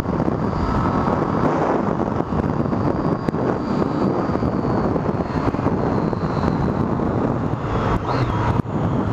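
Triumph Street Triple R's 675 cc inline three-cylinder engine running steadily under way, mixed with wind rush.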